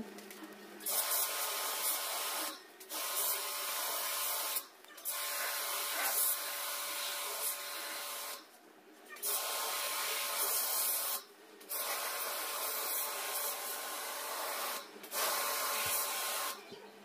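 Portable jet pump (high-pressure washer) spraying water onto a split AC indoor unit's evaporator coil, washing out the dirt. The spray hisses in six bursts with short breaks between them as the trigger is pulled and released, and a steady whine runs under it.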